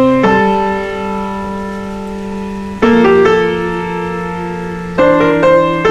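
Background piano music: slow, ringing chords struck in pairs about every two and a half seconds, each left to fade.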